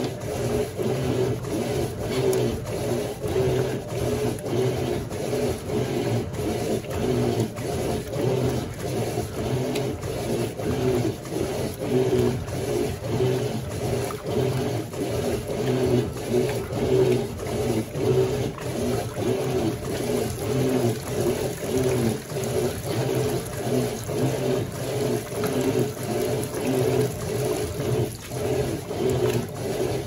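Electrolux LQ11 top-load washing machine in its wash agitation: the motor hums steadily while the agitator churns the water and laundry in an even, rhythmic back-and-forth.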